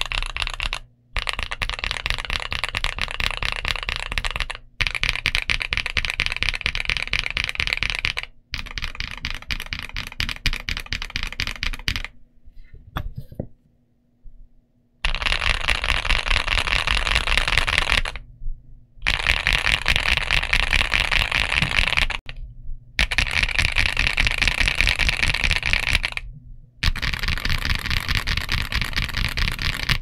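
Fast typing on an Ajazz AC067 mechanical keyboard with CIY Asura tactile switches on an aluminium plate and dye-sub PBT Cherry-profile keycaps, close-miked. The keystrokes come in dense runs of three to four seconds separated by brief pauses, with a longer, nearly quiet pause about halfway through.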